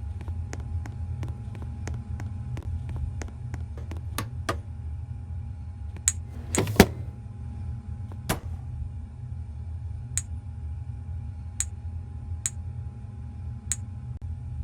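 Airliner cabin ambience: a steady low rumble with a faint constant tone, broken by scattered clicks and knocks. The loudest is a double knock about seven seconds in.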